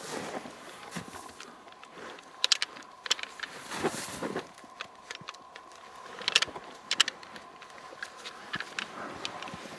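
Sharp metallic clicks and clinks of a Glock pistol and its magazines being handled, in short clusters.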